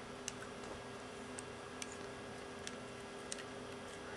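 Faint, irregular clicks of plastic parts and joints as a small G1 Transformers Seacon figure, Skalor, is twisted and folded by hand during its transformation, over a low steady hum.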